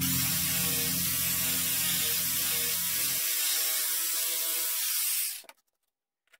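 Electric jigsaw running and sawing through a wooden board, a steady motor whine over the rasp of the blade, cutting off abruptly about five and a half seconds in.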